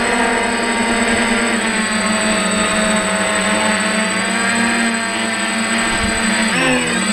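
DJI F550 hexacopter's six electric motors and propellers whining steadily, heard up close from a camera mounted on the craft. The pitch dips and rises briefly near the end as the throttle changes.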